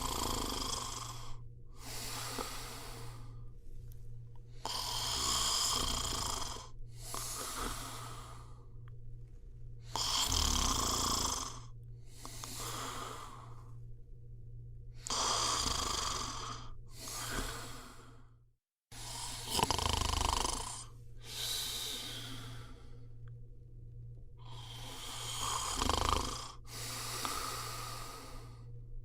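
A person snoring in slow, regular breaths, about six breath cycles, each heard as a pair of sounds roughly every five seconds, over a steady low hum. The sound cuts out for an instant about two-thirds of the way through.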